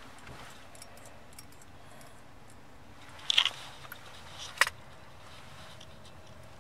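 Car rolling with its engine switched off and in neutral, heard from inside the cabin: a faint steady rumble of the tyres on the road. A short rustle about three seconds in and a sharp click about a second later stand out above it.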